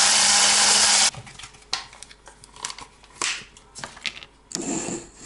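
Electric hand blender with a whisk attachment running in an enamel pot, beating egg yolks with powdered sugar: a loud, even whirring hiss with a faint hum that cuts off sharply about a second in. Light clicks and knocks of the whisk and pot follow, with a short louder burst near the end.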